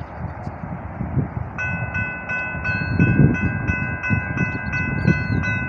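Railroad crossing warning bell starting up about a second and a half in and ringing steadily at about three dings a second: the crossing has activated for an approaching train. Wind rumbles on the microphone throughout.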